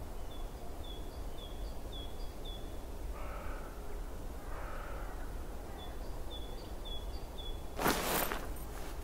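Outdoor ambience of birds: a small bird chirping in a quick repeating series, and two lower cawing calls in the middle. Near the end a short, loud burst of noise cuts in over the steady background hiss.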